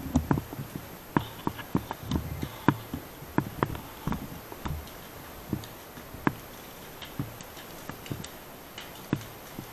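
Burning dry grass and undergrowth crackling, with sharp irregular pops a few times a second.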